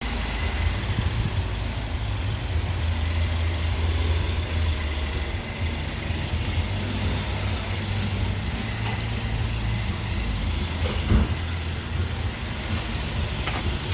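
Car engine idling, a steady low rumble, with a single brief knock about eleven seconds in.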